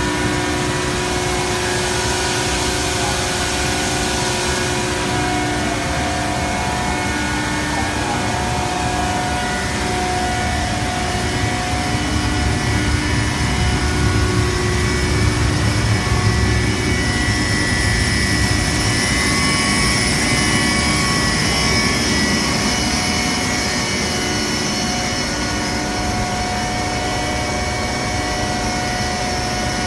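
EREMA plastic recycling line running: a steady machine din of motor and fan whine, several constant tones over a broad rush. The low rumble grows louder in the middle, then settles.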